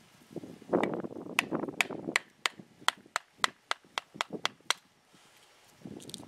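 A hand blade chopping small dry limbs on a wooden stump block: about a dozen quick, sharp strikes, roughly three a second, following a short stretch of wood scraping and rustling.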